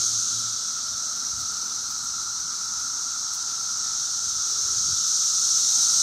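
Dense chorus of 17-year periodical cicadas (Brood X): a steady, loud, high-pitched hiss with a lower droning band beneath it, swelling a little toward the end.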